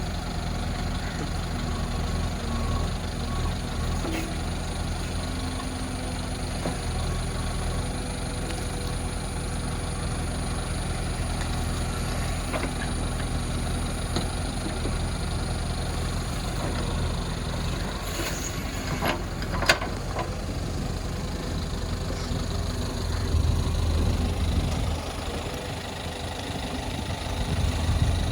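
JCB backhoe loader's diesel engine running steadily, with one sharp knock about twenty seconds in.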